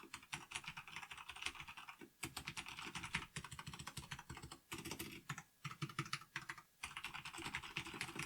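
Typing on a Corsair K70 RGB LUX mechanical keyboard with Cherry MX Brown switches: rapid key presses in bursts, with brief pauses between them.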